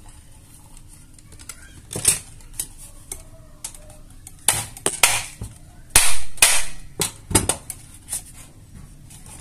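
Snap-fit plastic latches of a printer power-supply case cracking and clicking as the screwless case is pried open with pliers. It comes as a string of sharp cracks, loudest about six seconds in.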